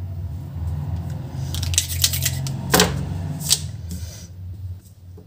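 Plastic felt-tip markers being handled and set down on a paper sheet: a few sharp clicks and taps, the strongest near the middle, over a low steady rumble and faint rustling.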